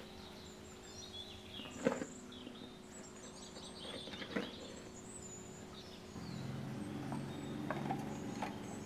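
Small birds chirping on and off over a steady low hum, with two short knocks about two and four seconds in and a low buzz that comes in about six seconds in.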